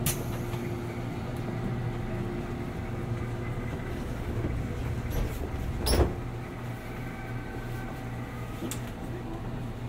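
Steady low electrical hum of a 189-series electric train standing at a station platform, with a sharp click right at the start and a louder thud about six seconds in.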